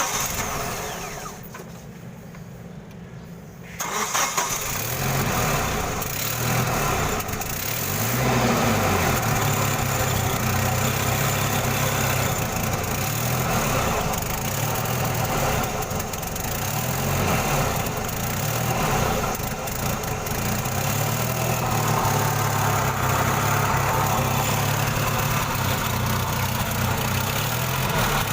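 Gasoline forklift engine catching about four seconds in, then running with its speed rising and falling. The engine starts hard and will not stay running unless the gas pedal is held down.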